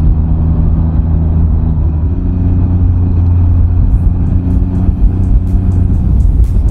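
Can-Am Ryker three-wheeler's engine running steadily at cruising speed, heard from the rider's helmet under heavy wind rumble. Its note shifts to a slightly different pitch about two seconds in.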